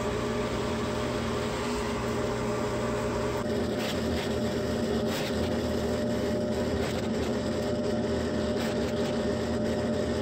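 Steady hum of an electric motor running, with faint clicks in the second half.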